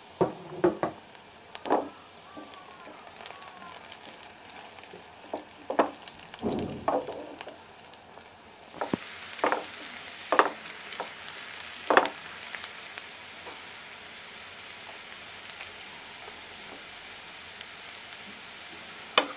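Chopped onions frying in oil in a nonstick pan: a steady sizzle, with a spatula scraping and knocking against the pan every few seconds. The onions are being fried to a light brown, and the sizzle grows louder about nine seconds in.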